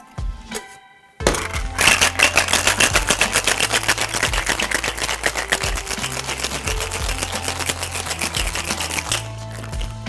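Ice cubes rattling hard inside a two-piece metal tin-on-tin cocktail shaker, shaken fast in a steady rhythm. The rattling starts about a second in and stops near the end. Under it runs background music.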